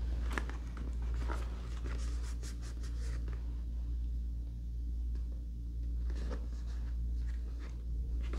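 A cardboard sunglasses box being handled and turned over in the hands, its card scraping and rubbing against fingers in short scratchy strokes during the first three seconds and again about six to eight seconds in. A steady low hum runs underneath.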